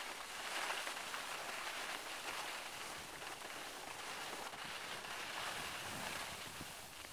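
Skis sliding and scraping over groomed snow, a steady hiss that swells and eases a few times.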